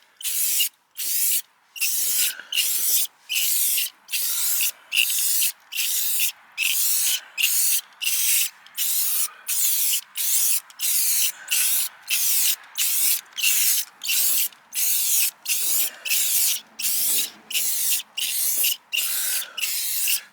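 Aerosol spray-paint can sprayed in short rapid bursts, about two hissing spurts a second with brief gaps between, coating the inside of a rusty steel wheel.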